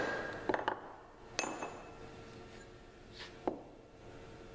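Punch and small hammer on a steel bar: a close pair of light metallic taps about half a second in, a sharper strike with a short ring about a second and a half in, and another near the end, marking layout points in the bar.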